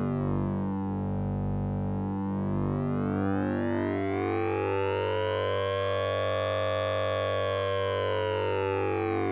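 Synthesized oscillator-sync and ring-modulation tone from the Orange Vocoder plugin: a steady low hum under a buzzy, siren-like sound whose upper overtones sweep slowly down, then up to a peak around the middle, then down again.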